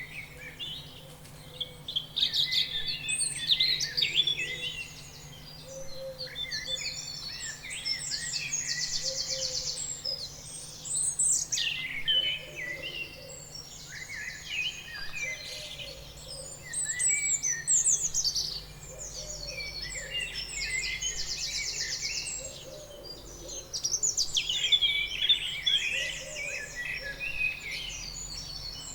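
Several songbirds singing and chirping over one another, with rapid trills and short whistled phrases, over a faint steady low hum.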